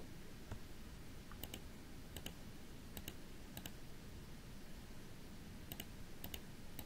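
Faint, scattered clicks of a computer mouse selecting bones on screen, several over a few seconds, with no set rhythm.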